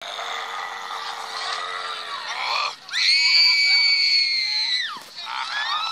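Shrill screaming and wailing cries, with one long high scream held steady for about two seconds in the middle that falls away at its end.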